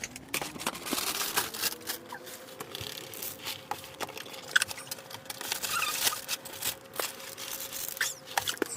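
Crinkling and tearing of cereal packaging with many small clicks and taps as boxes and bags are handled, and a faint hum underneath that rises at the start and falls away near the end.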